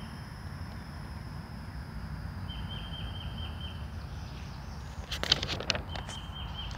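A picture-book page being turned, a brief crackly paper rustle about five seconds in, over a steady low outdoor rumble. A bird's high, pulsing trill repeats three times.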